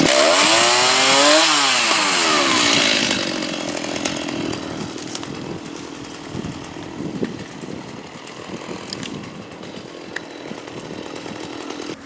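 Gas chainsaw revved, its pitch swinging down and up, then dying away about three seconds in, leaving faint clicks and rustling.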